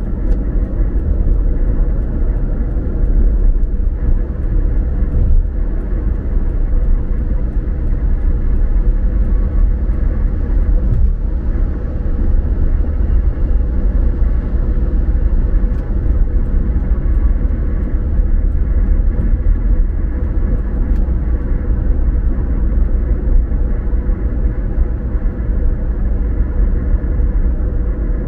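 A car driving, with a steady low rumble of tyres on the road and the engine, and a faint steady hum underneath.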